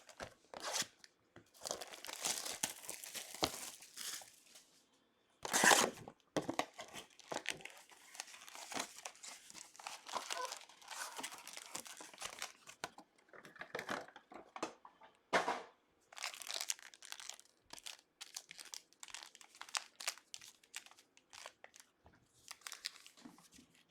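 Plastic wrapping on a sealed sports card box and its packs being torn open and crinkled by hand: irregular crackling and rustling, with louder rips about six and fifteen seconds in.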